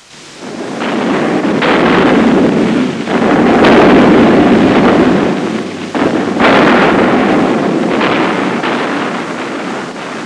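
A run of heavy, rumbling explosions, each blast starting sharply and dying away slowly under the next, loudest about four seconds in.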